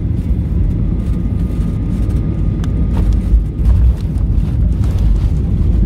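Steady low rumble of airliner cabin noise, with a few faint clicks around the middle.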